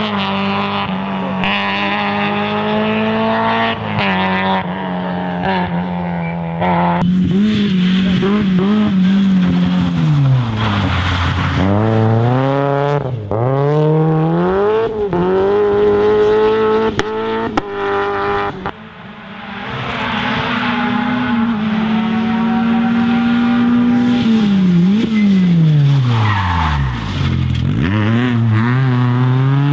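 Rally car engines revving hard. The engine note climbs, then several times drops steeply as the throttle is lifted and rises again as they pull away.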